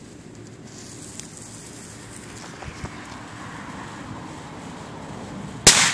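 A tiny Panda Fireworks Tornado firecracker's fuse fizzing for several seconds, then the firecracker going off with one loud, sharp bang near the end.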